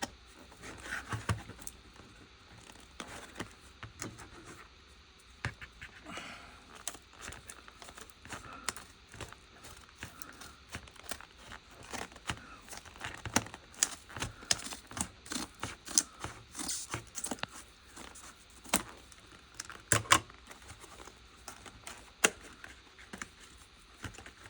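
Child-resistant retail packaging being crinkled, bent and torn open by hand: an irregular run of crackles and clicks, with a few louder sharp snaps, the loudest about twenty seconds in.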